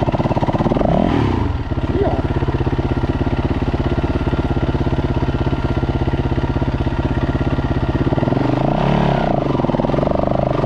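Dirt bike engine idling steadily close by, with engine revs rising and falling in the first second or so and again near the end as a second dirt bike works up the trail.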